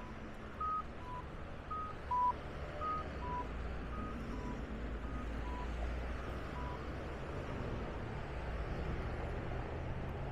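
Accessible pedestrian crossing signal sounding a two-note cuckoo tone, a short higher beep then a lower one, repeating about once a second and fading away after about six seconds. A steady low traffic rumble runs underneath.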